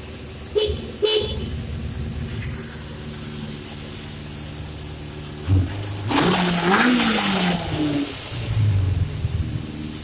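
Freshly rebuilt 1977 Honda CB750 Super Sport's air-cooled inline-four running at idle and revved a few times: two quick blips in the first second or so, then a longer rev that rises and falls about six seconds in, and a shorter one near the end.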